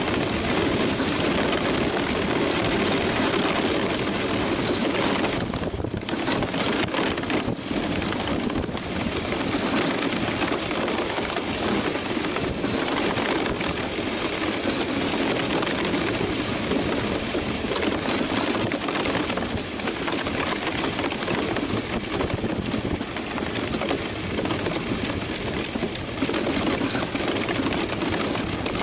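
DN iceboat sailing over ice at about 15–20 km/h: a steady rushing noise of the runners sliding on the ice and wind over the onboard camera.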